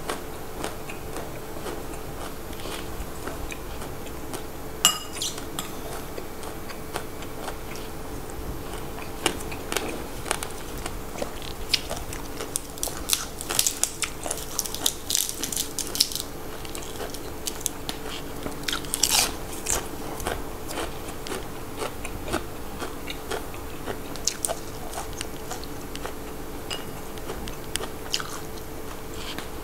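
Biting and chewing fresh raw vegetables and leafy shoots dipped in a chili paste: a run of crisp crunches and wet chewing, with a cluster of louder crunches about halfway through.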